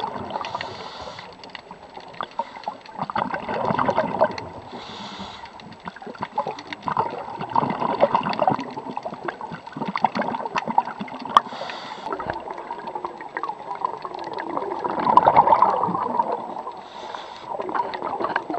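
Scuba diver breathing through a regulator underwater: a short hiss on each inhale, then a crackling burst of exhaust bubbles, repeating every few seconds.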